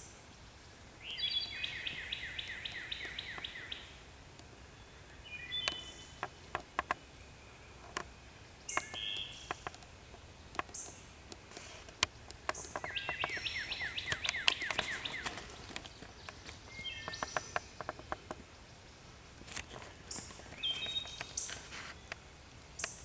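Woodland birdsong: a bird's rapid trill of quick repeated notes, given twice for a few seconds each, among short high chirps. Scattered sharp crackles come from the dry leaf litter.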